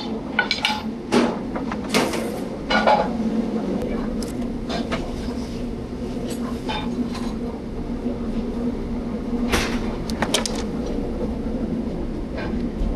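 Busy restaurant kitchen line: metal pans, plates and utensils clanking and clinking at irregular moments, with a cluster of sharp clanks in the first three seconds and another about ten seconds in, over a steady background hum.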